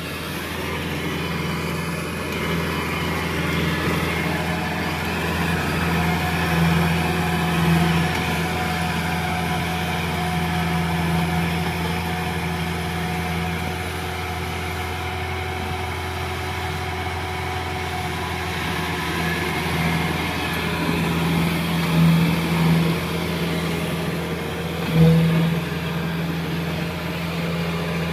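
Kubota crawler combine harvester's diesel engine running steadily as the machine tracks through a flooded, muddy rice paddy, with a few brief surges in loudness near the end.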